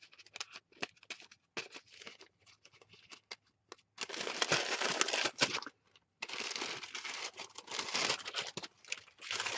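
Sheet of tissue paper crinkling and rustling as it is unfolded and handled: scattered light crackles at first, then two longer stretches of steady rustling from about four seconds in, split by a short pause.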